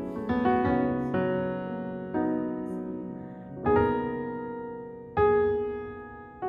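Slow piano music: chords struck every one to one and a half seconds, each left to ring and fade before the next.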